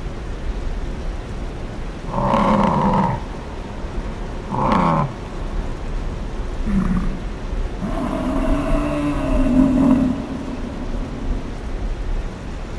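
Water buffalo calling: short bellows about two, five and seven seconds in, then a longer, wavering bellow from about eight to ten seconds in.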